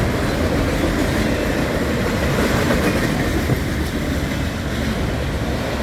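Empty autorack cars of a freight train rolling past at speed: a steady, loud rumble and rattle of steel wheels on the rails.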